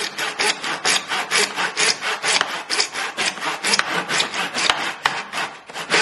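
Hand saw cutting through PVC pipe held in a wooden mitre box: quick, even back-and-forth rasping strokes, about four or five a second, with a brief pause near the end.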